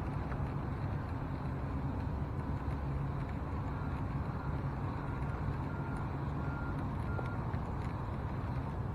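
A boat's motor runs steadily with a low rumbling hum. In the middle a short, high electronic beep repeats about twice a second for a few seconds.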